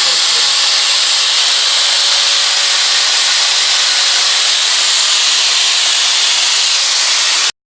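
Eureka Forbes Xforce vacuum cleaner running steadily, a loud rush of air from its motor with a faint steady hum beneath. The sound cuts off abruptly near the end.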